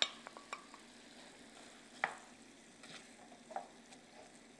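Chopped onion and beef cubes frying faintly in butter and oil in a stainless-steel pot, stirred with a wooden spoon that knocks against the pot a few times, most sharply about two seconds in.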